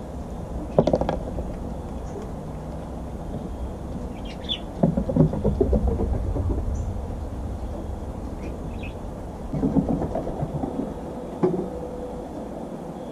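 Fox squirrel handling acorns on a wooden deck: clusters of knocking and clattering as acorns are knocked about and roll on the boards, about a second in, again around five to six seconds, and again around ten to eleven seconds. A steady low rumble runs underneath, with a few faint high chirps.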